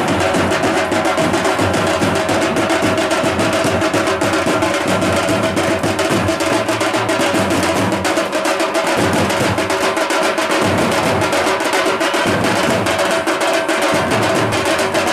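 Loud, fast drumming in a rapid, unbroken run of strokes, with a steady held tone sounding over it.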